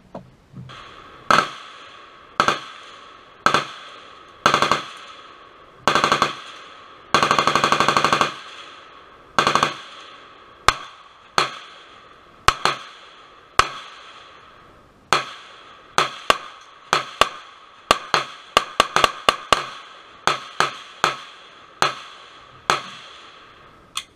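Handgun shots at an outdoor range: single shots roughly a second apart and some quicker strings of several, each sharp crack trailing off in a short echo. About seven seconds in, a rapid rattle of shots lasts about a second.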